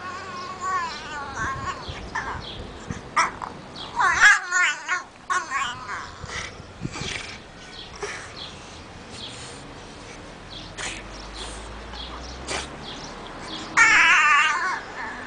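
French bulldog making high, wavering whining and grumbling vocalizations, in bursts, the loudest about four seconds in and again near the end, with quieter stretches between.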